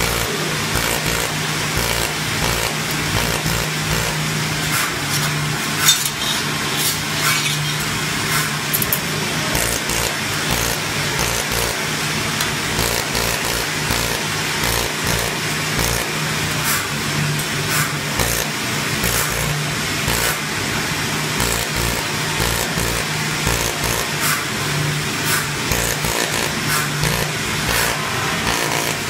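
Laser welding machine running on stainless steel sign letters: a steady mechanical hum with a hiss and many irregular sharp ticks.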